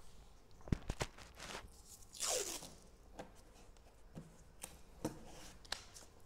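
A strip of masking tape pulled and torn off the roll, a short rasp about two seconds in. Around it come faint clicks and taps of hands handling a hard plastic tool case.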